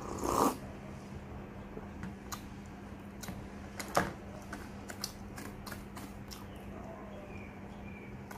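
A loud slurping sip of milk from a small glass bowl, then a sharp clink about four seconds in as the glass bowl meets the plate, followed by a string of small crunchy chewing clicks. A steady low hum runs underneath.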